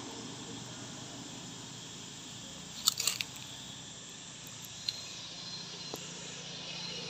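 Steady outdoor background hiss with a short burst of sharp clicks about three seconds in, then single clicks a couple of times later.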